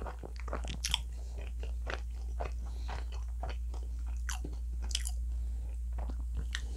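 Close-miked chewing of a mouthful of Domino's pizza, with irregular crisp crunches and clicks as the crust is chewed, over a steady low hum.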